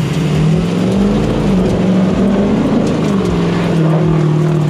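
Ford Super Duty pickup's diesel engine revving hard as its mud tires spin in slick mud. The truck is stuck in two-wheel drive. The engine speed rises and falls a couple of times, then holds steady under load.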